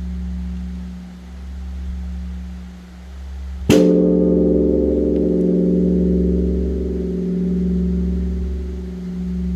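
Large bronze Korean Buddhist temple bell (beomjong) struck once, about four seconds in, by a wooden striker. Its deep hum swells and fades about once a second, and the fresh stroke rings on over it with a bright cluster of tones.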